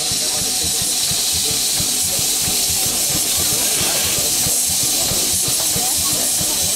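Steady hiss of steam from a standing LMS Princess Royal class Pacific steam locomotive, with crowd chatter and low rumbling underneath.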